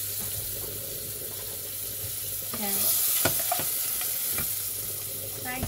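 Butter sizzling in a hot saucepan as a wooden spatula stirs it, with a few sharp taps of the spatula against the pan in the middle.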